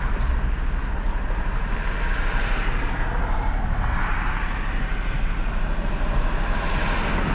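Road traffic passing: tyre and engine noise that swells and fades over a steady low rumble.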